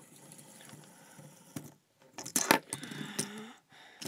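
Fidget spinner being handled close to the microphone: faint rustling, then a few sharp clicks and a small clattering rattle about two and a half seconds in.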